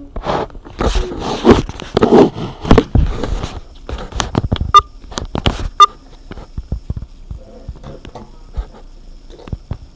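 Hands squeezing and stretching sticky slime: a run of wet squelches and popping clicks, loudest in the first six seconds, then fainter, sparser pops.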